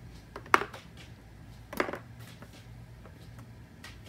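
A hollow plastic ball with holes set down into a cardboard tray: a sharp, loud knock about half a second in, then a softer knock a little over a second later.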